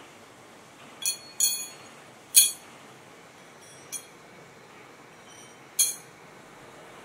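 Steel motorcycle sprockets clinking against each other as they are set down on a stack: five sharp metallic clinks with a short ring, the loudest about two and a half seconds in, over a steady faint hiss.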